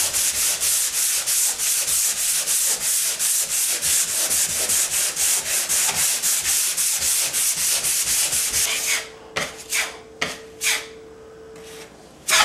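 Sanding dried drywall joint compound on a wall patch: quick, even back-and-forth strokes, about four a second, that stop about nine seconds in, followed by a few single strokes.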